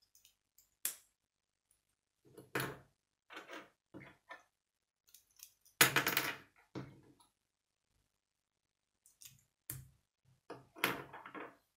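Plastic K'nex rods and connectors clicking and clattering as they are snapped together by hand and set down on a wooden table: irregular sharp clicks, the loudest clatter about six seconds in.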